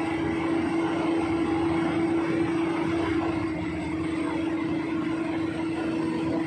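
Heavy diesel engines of a Komatsu D85E-SS crawler bulldozer stuck in mud and a Hyundai excavator running, a steady drone that holds one pitch throughout.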